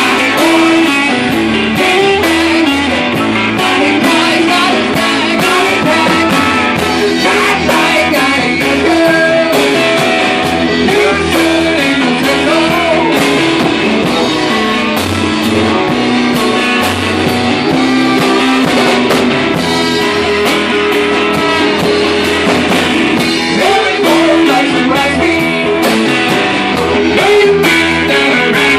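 Live rock band playing loudly: electric guitar through an amplifier over a drum kit's steady beat, with a brass horn in the mix.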